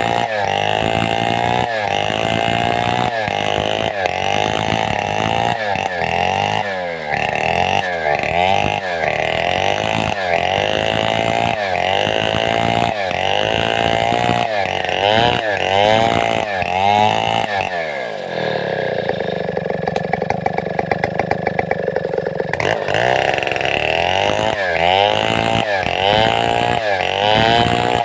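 Large two-stroke chainsaw, a Stihl 070-type saw, running hard as it saws a log into boards, its engine speed sagging and recovering about once a second under the load of the cut. About 18 s in it drops to a low, uneven idle for some four seconds, then revs back up into the cut.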